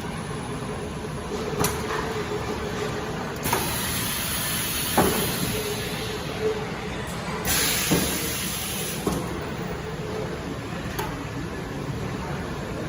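High-frequency PVC welding machine working through a weld cycle: a few sharp clicks and two bursts of air hiss, over a steady machine hum.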